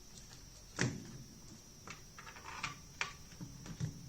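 Light knocks and clicks of a 3D-printed plastic RC boat being handled and set in place, with one sharper knock about a second in and several smaller ones after.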